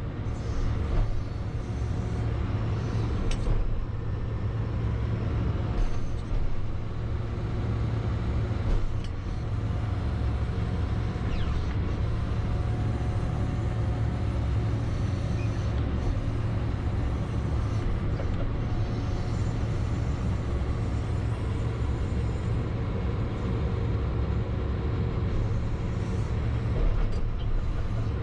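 John Deere 310SL loader backhoe's 99 hp diesel engine running steadily at work, with a low hum and a few brief knocks scattered through it.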